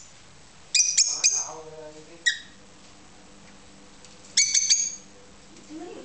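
Peach-faced lovebirds giving sharp, shrill chirps in quick runs: four or five about a second in, a single chirp a second later, and another quick run a little past four seconds in.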